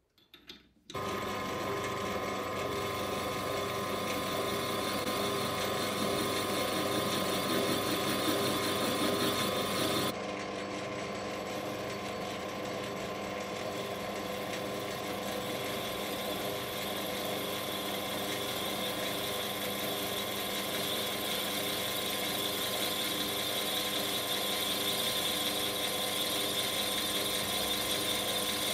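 Metal lathe running steadily, a mechanical hum with a few steady whining tones from its motor and gearing. It starts suddenly about a second in, and its tone shifts slightly about ten seconds in.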